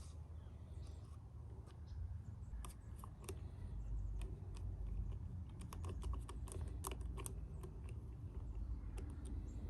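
Scattered light clicks and taps of small hard parts being handled and fitted as a marine toilet pump is put back together, in small clusters over a low steady rumble.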